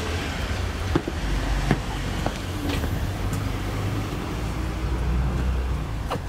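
Footsteps on paving slabs, a few scattered light clicks, over a low steady rumble.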